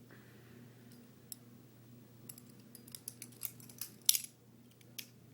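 Sharp metallic clicks and clacks of a butterfly knife being handled: a few light ticks, then a quick run of clicks about two seconds in, the loudest a little after four seconds.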